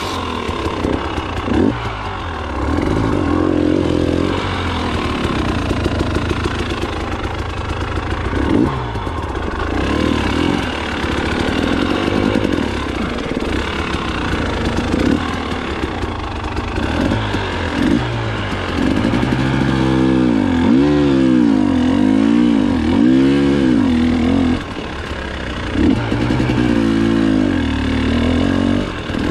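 KTM 300 XC-W TPI two-stroke dirt bike engine revving up and down over and over as it is worked along a rocky trail, with a quick run of rev swings about two-thirds of the way in. Occasional knocks and clatter come from the bike over rocks.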